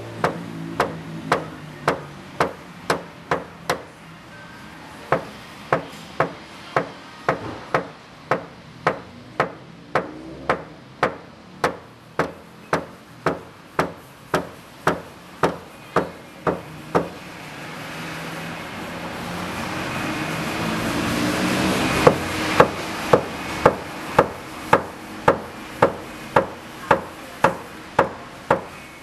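Music with a sharp, steady tapping beat of about two taps a second over sustained tones. The taps pause near the end for a swelling build, then resume.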